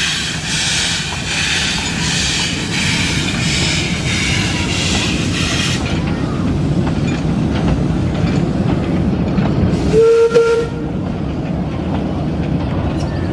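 1907 Fowler 0-6-2T narrow-gauge steam locomotive working a passenger train: a regular beat of hissing exhaust chuffs, about three every two seconds, for the first six seconds. Then the steady low rumble of the train rolling on the rails, with one short whistle blast about ten seconds in.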